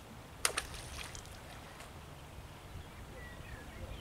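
One sharp click about half a second in, followed by a few lighter clicks, over faint steady background noise, with a few faint short chirps near the end.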